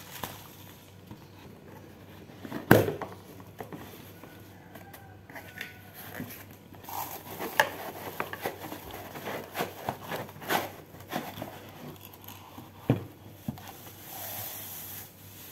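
Plastic packaging crinkling and rustling while a cardboard box and a plastic-wrapped utensil holder are unpacked by hand, with scattered handling clicks and a sharp knock about three seconds in.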